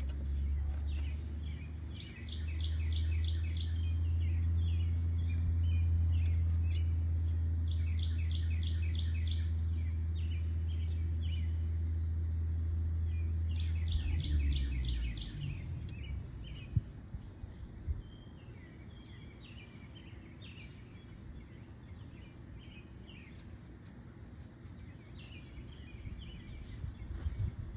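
Birds singing in short repeated trills over a steady low rumble. The rumble is the loudest sound and stops a little past halfway, leaving the birdsong with a few light knocks.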